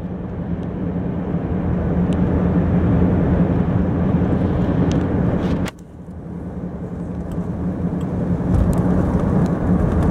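Car driving on an open road, its engine and tyre noise heard from inside the cabin as a steady rumble with a low hum. The noise builds, drops suddenly a little past halfway, then builds up again.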